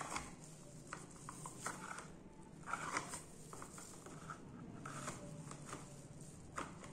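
Small plastic drawers of a mini desk organizer being slid in and out by gloved hands: faint scattered clicks and scrapes of plastic on plastic, the loudest about three seconds in.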